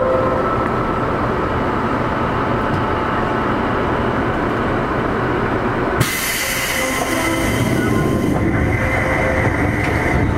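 Seibu 2000 series electric train standing at the platform, its onboard equipment giving a steady low hum; about six seconds in, a sudden hiss of compressed air that lasts about two seconds.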